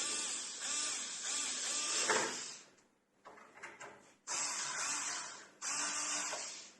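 Xiaomi Mijia electric screwdriver running in three bursts, driving screws back into a door lock: a long run of about two and a half seconds, then two short runs of about a second each near the end.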